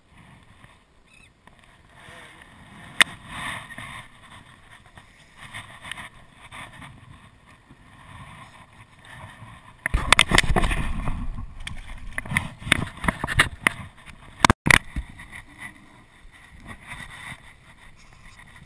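Camera handling noise: rubbing and knocking against clothing and the boat's side, loudest from about ten to fourteen seconds in, with a few sharp clicks. Faint wind and water noise in between.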